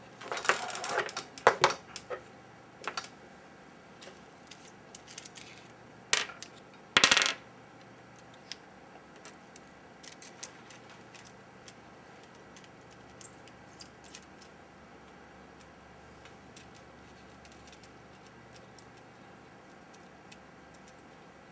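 Small metal tools and parts clinking and clattering on a workbench while a very fine soldering-iron tip is fetched. A burst of rattling comes at the start, two louder sharp clanks follow about six and seven seconds in, and then only scattered faint ticks.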